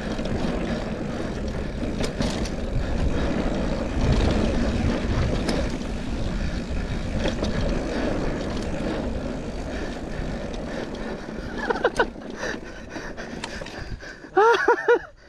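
Mountain bike rolling fast down a dirt jump trail: a steady rush of wind on the handlebar-mounted camera's microphone over tyre rumble and small rattles and knocks from the bike. Near the end come a few short high-pitched squeals.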